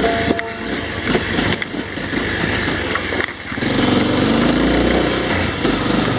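Honda CRF250L's single-cylinder four-stroke engine running as the motorcycle rides a rough dirt track, the engine note rising and falling with the throttle around the middle, with a few short knocks over the stones.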